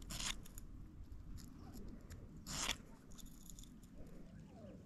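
A fish hook being sharpened on a small handheld hook sharpener: a few short, faint scraping strokes, the loudest about two and a half seconds in.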